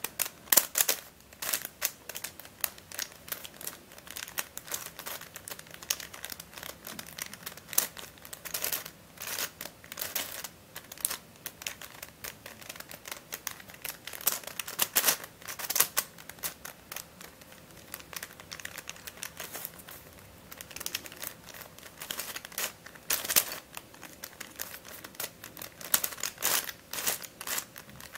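Plastic pieces of a Dayan + MF8 crazy five-layer pentahedron clicking and clattering as its layers are turned quickly by hand to scramble it, in an irregular run of clicks with a few short pauses. The thin layers move really freely.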